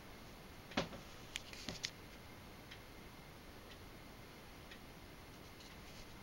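A clock ticking faintly and evenly about once a second. A few louder, sharper clicks come in the first two seconds.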